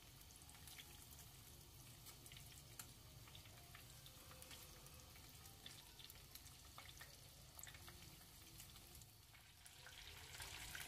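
Faint sizzling and crackling of breaded chicken pieces deep-frying in hot oil in a pan, with scattered small pops.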